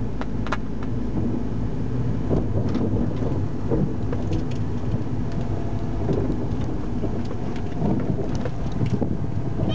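Steady low rumble of a car's engine and road noise heard from inside the cabin while driving slowly, with a few light clicks and knocks.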